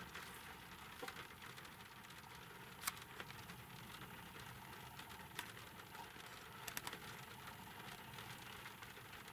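Faint, steady hiss with a few scattered light ticks, the clearest about three seconds in: sparse raindrops tapping on a car's windscreen and roof.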